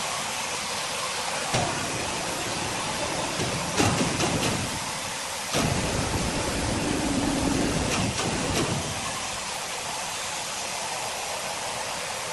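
Steady hiss of sawmill machinery, broken by several heavy knocks of timber and a low rumble in the middle as a freshly sawn slab is worked loose and hoisted off the log.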